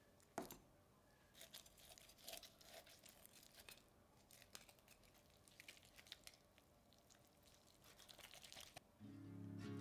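Knife and metal tongs carving a crisp-skinned air-fried whole chicken on a wooden board: faint crackling, crunching and tearing of skin and joints, with a sharp click about half a second in. Music comes in near the end.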